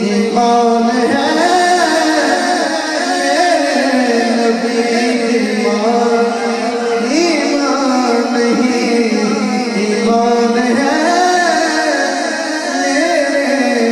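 A male naat reciter singing long, ornamented melodic phrases through a PA microphone over a steady held backing drone.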